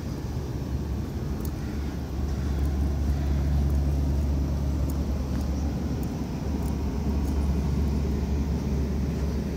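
Low, steady rumble of a car driving slowly, engine and road noise, growing louder about two seconds in.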